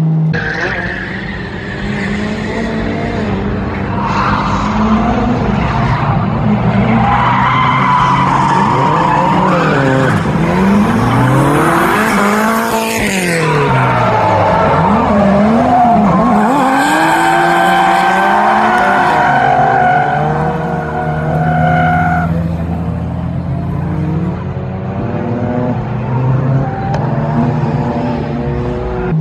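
Several drift cars' engines revving hard, their pitch swinging up and down as the cars slide, with tyres squealing. The engine pitch falls sharply near the middle as one car sweeps past.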